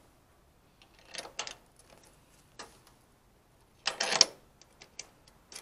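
Hand tools clicking and rasping on the metal bolts of a CB antenna mount as they are tightened. There are short scattered bursts, the loudest about four seconds in, then a run of small clicks near the end.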